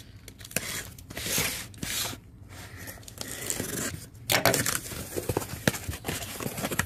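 A small, tightly packed cardboard box being opened by hand: tearing and rustling of tape and packing material in uneven bursts, with scrapes and light clicks.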